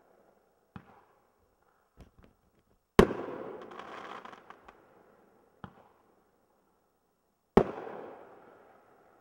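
Aerial fireworks from a consumer cake: a few small pops, then a loud shell burst about three seconds in followed by a quick spray of crackles, and a second loud burst near the end, each bang trailing off slowly.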